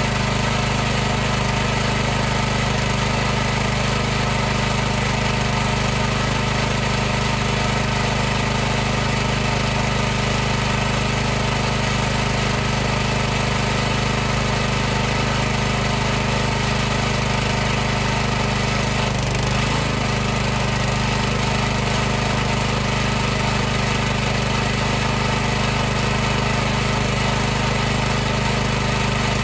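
High-pressure washer running steadily: a constant motor-and-pump hum with a hiss above it, wavering briefly about twenty seconds in.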